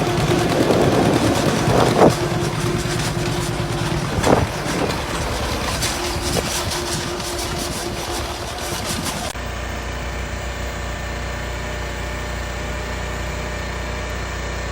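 Farm tractor engine idling, with wind on the microphone and two sharp knocks about two and four seconds in. About nine seconds in, the sound cuts abruptly to a steadier, lower engine hum.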